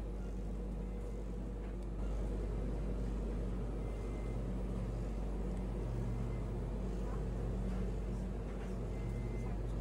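Steady low hum of supermarket refrigerated display cases and ventilation, with two faint short beeps, about four seconds in and near the end.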